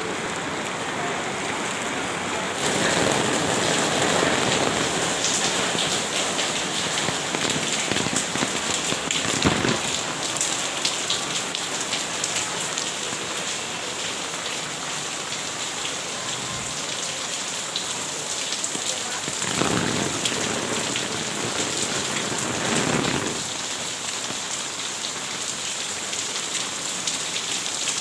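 Rain falling steadily. It grows louder about two and a half seconds in, with a few brief louder swells.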